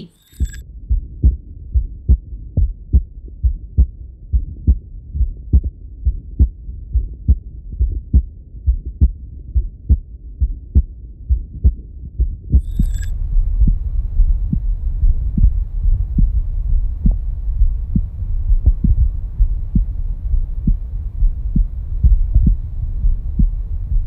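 Heartbeat heard through digital stethoscopes: a steady lub-dub of paired low thumps, first from a Littmann Core Digital. About halfway through, after a short click, it switches to a Stemoscope Pro recording, where the same heartbeat sits in a louder steady low hum with a faint hiss.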